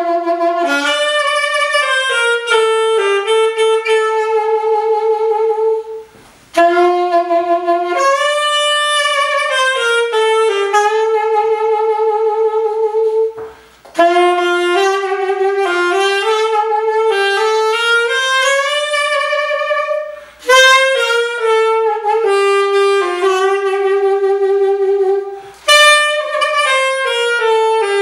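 Unaccompanied alto saxophone playing a melody in five phrases, with short breath pauses between them and vibrato on the long held notes.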